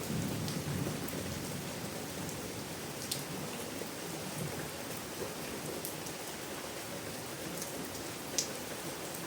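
Steady rain falling: an even hiss with scattered single drops ticking through it, one louder drop near the end.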